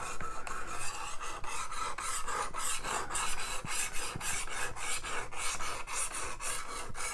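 Diamond hone of a Work Sharp Precision Adjust knife sharpener scraping in quick, even back-and-forth strokes along a steel knife edge, a steady gritty rasp. This is the coarse-grit stage, working the edge until a burr is raised before moving up to the 600 grit.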